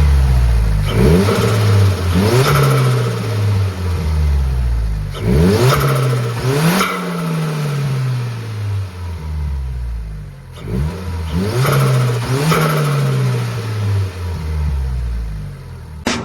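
Mitsubishi Colt Ralliart Version-R's turbocharged 1.5-litre four-cylinder (4G15T MIVEC) revved up and let fall several times, with a fluttering chatter from the turbo as each rev drops. This is turbo flutter: the recirculation valve has been removed and its ports capped, so the trapped boost pushes back through the compressor when the throttle closes.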